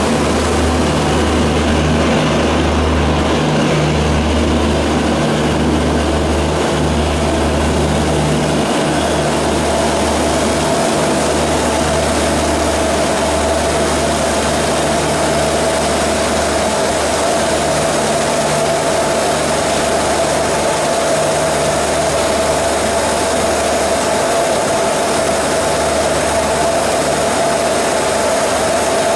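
Heavy rain pouring down steadily, over a low humming rumble from a departing Indian Railways passenger train as its coaches roll away. A steady whine comes in about a third of the way through.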